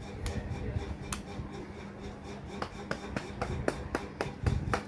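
A run of light, sharp clicks and taps, a few in the first half and then coming quickly, several a second, from about two and a half seconds in, over a low handling rumble.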